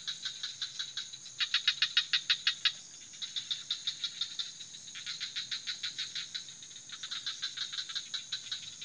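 Night-time insect chorus: a steady high-pitched drone overlaid by rapid pulsed calls, about nine pulses a second, in trains of a second or so that repeat after short pauses.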